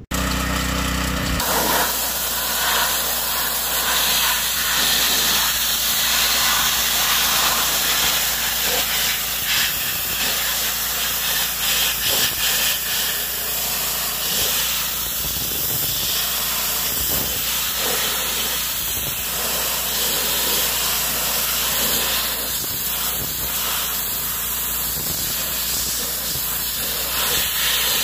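Pressure washer jet spraying against the sheet-metal grille of a John Deere B tractor, a loud steady hiss, blasting off paint loosened by electrolysis.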